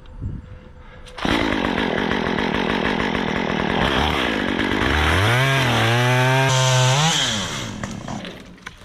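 Stihl chainsaw bucking a felled dead pine: it throttles up suddenly about a second in and cuts, the engine pitch climbs and holds high about halfway through, then drops back toward idle near the end.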